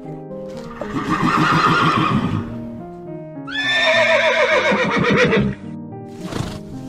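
Two loud animal calls over background music; the second is a long quavering call that starts high and falls in pitch.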